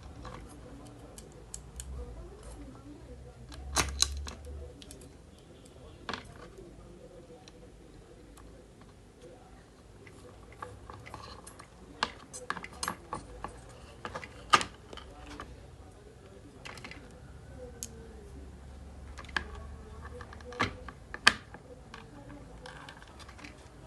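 Irregular clicks, taps and knocks of tools and small parts being handled during an induction cooker repair, with a few sharper knocks standing out, over a faint intermittent low hum.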